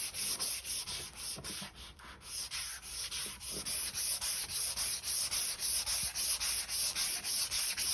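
Hand sanding of epoxy primer on a car body panel with sandpaper on a homemade T-grip sanding block: quick, even back-and-forth strokes, about four or five a second, easing briefly a little over a second in.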